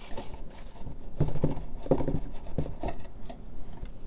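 A cardboard pen box being handled, its printed outer sleeve sliding off the inner box: card rubbing and scraping, with several soft knocks between about one and three seconds in.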